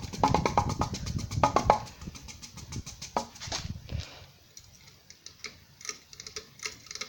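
Rapid, even clicking and rattling from a 52-inch Hampton Bay St. Claire ceiling fan coasting after being switched off. It is loud for about two seconds, then fades away, leaving a few faint scattered clicks.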